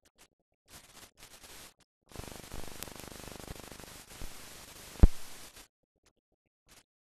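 Noise on an old film soundtrack, with no sync sound. First come faint scattered crackles. About two seconds in, a steady hiss starts, with a few clicks in it and one loud pop about five seconds in, and the hiss cuts off suddenly about half a second after the pop.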